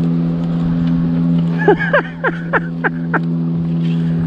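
Steady hum of the fishing boat's motor. A run of about six short rising-and-falling vocal sounds from a person comes in the middle.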